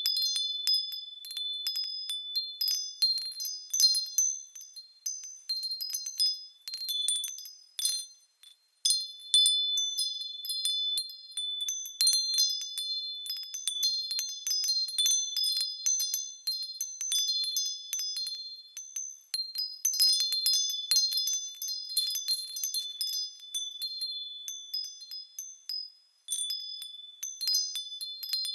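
Small metal bells swaying and ringing, many light high-pitched strikes overlapping into a continuous tinkling. The ringing dies away briefly twice, about a third of the way in and near the end, before starting again.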